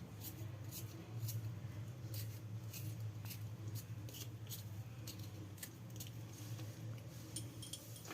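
Faint, irregular scraping clicks of fresh ginger root being peeled by hand, over a steady low hum.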